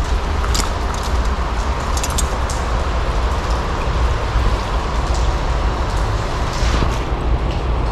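Rain falling steadily, with scattered drops landing as short ticks, over a constant low rumble.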